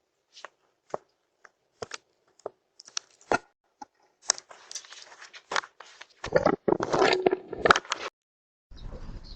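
A series of sharp clicks and knocks, a few to the second, then a denser rustling clatter with loud strokes that stops abruptly; a steady noisy background comes in near the end.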